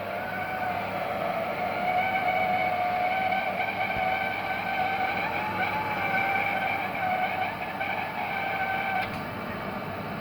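Oil heating burner running with a steady rush, over which a high, slightly wavering whine sounds, the unwanted noise it is making. The whine cuts off sharply about nine seconds in while the steady running noise carries on.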